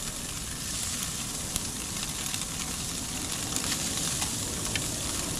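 Black grouper fillets sizzling on the hot grates of a gas grill: a steady hiss with scattered small crackles as the fish sears.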